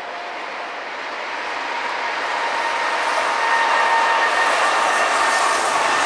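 Kintetsu electric commuter train approaching and passing close by. Its running noise grows steadily louder, with a steady high whine running through it.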